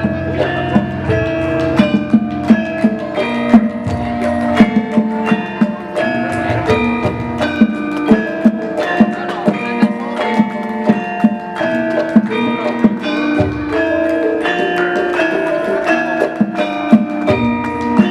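Javanese gamelan ensemble playing: bronze metallophones and gongs struck in quick, interlocking patterns of ringing pitched notes, with sharp strokes standing out several times a second and deep gong swells now and then.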